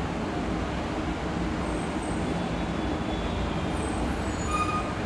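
Road traffic: a bus and cars passing on the road, a steady rumble.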